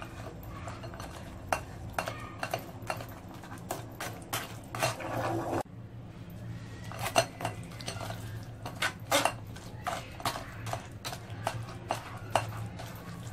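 Irregular scrapes and light clinks of a spoon and fingers working soft custard apple pulp against a stainless steel mesh strainer, separating the seeds from the pulp.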